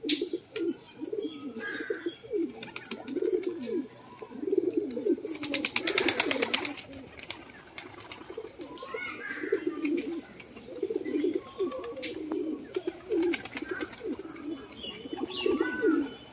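Domestic pigeons cooing over and over in low, throaty calls, with a short flurry of wingbeats about six seconds in and a few higher calls from other birds.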